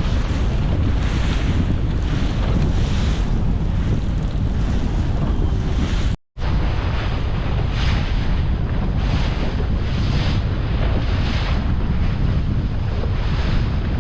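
Wind buffeting the microphone on a moving boat, over the rush of water and spray off the hull, surging about once a second as it rides the waves. The sound drops out for a moment about six seconds in.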